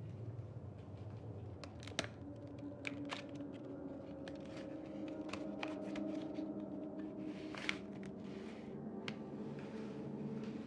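Padded paper mailing envelope being opened and handled: crinkling, rustling paper with sharp crackles, the loudest rustle about three-quarters of the way through, over a faint steady low hum.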